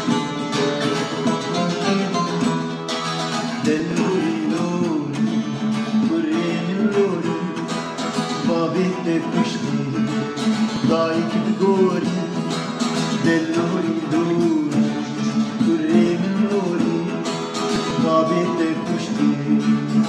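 Music: a plucked acoustic guitar playing chords, joined about four seconds in by a voice singing a melody.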